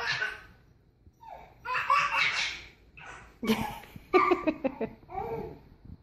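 A baby belly-laughing in several separate bursts, the later ones broken into quick rhythmic pulses.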